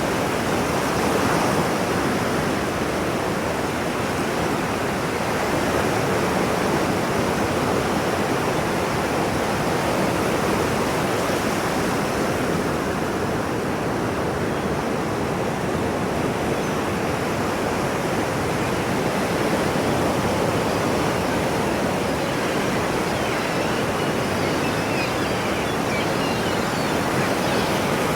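Ocean waves washing on a shore: a continuous, dense hiss of surf that stays nearly even in level, with only slight slow swells and no separate breaks standing out.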